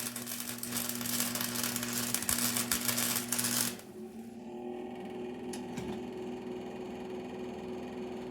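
Electric arc welder crackling as a bead is laid on a rebar bar, with the welder's steady hum underneath; the arc stops about four seconds in, leaving the hum and a couple of faint clicks.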